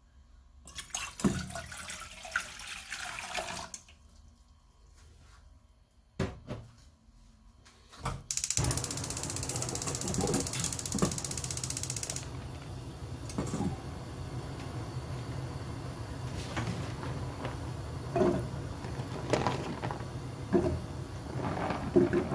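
Water poured into a metal saucepan for a few seconds. A few clicks are followed by a steady rushing hiss from a gas stove burner being lit and left burning. Near the end come a few knocks as sticks of tteok (rice cake) are tipped into the pan.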